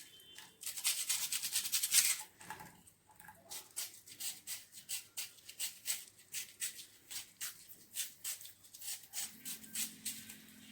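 Knife slicing through an onion held in the hand, a crisp cut about three times a second, with a scraping rustle in the first two seconds.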